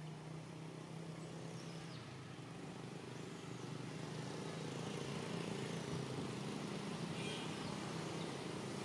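A motor vehicle engine running steadily, with a low, even hum that grows gradually louder, as if the vehicle is drawing nearer.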